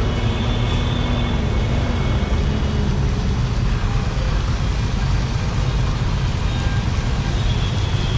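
Steady traffic noise: a constant low road rumble with a hiss above it.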